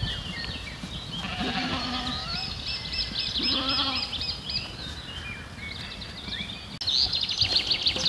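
Livestock bleating twice, at about one and a half and three and a half seconds in. High bird chirps run throughout and quicken into a rapid trill near the end.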